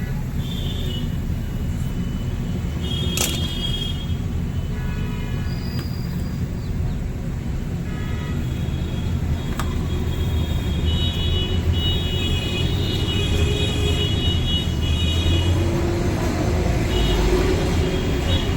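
Busy road traffic: a steady low rumble of passing vehicles, with horns beeping several times, longest about halfway through.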